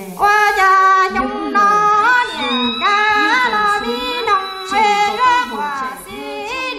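A high female voice singing a melody in short phrases, the notes sliding and bending in an ornamented way.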